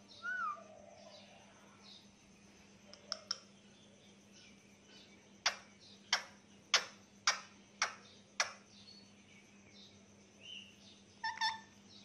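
Parakeet beak clicks: six sharp clicks about half a second apart, as a ringneck parakeet nibbles at an Alexandrine parakeet's beak, after a short gliding parakeet call at the start and two lighter clicks. A few brief chirps come near the end.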